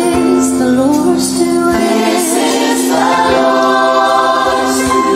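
Gospel-style music with a choir singing long held notes.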